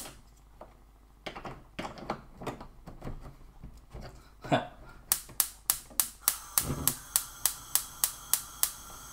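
Gas hob's electric spark igniter clicking rapidly and evenly, about four clicks a second for three or four seconds, starting about five seconds in, while a burner is being lit. A few scattered handling knocks come before it.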